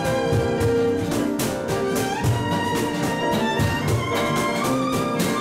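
Live acoustic ensemble playing: a violin carries held melody notes over strummed acoustic guitar and piano, with a steady beat.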